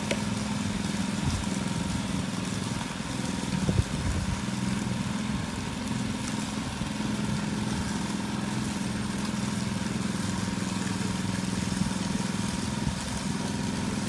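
Small petrol engine of a walk-behind power trowel (helicopter trowel) running steadily as it floats a fresh concrete slab, with a short knock about four seconds in.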